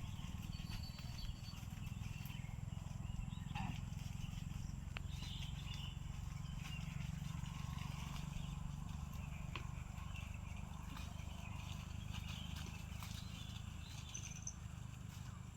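Outdoor pasture ambience: a steady low rumble with faint, scattered bird chirps and the odd small click.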